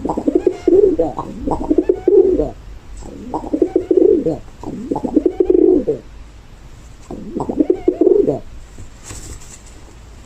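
Pigeon cooing in three bouts of warbling calls with short pauses between them.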